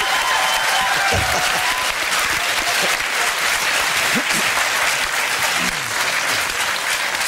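Studio audience applauding steadily, with a few faint voices mixed in under the clapping.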